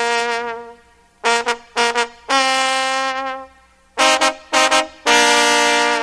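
Cumbia music: a melodic lead plays phrases of short punchy notes and long held notes, with brief pauses between phrases.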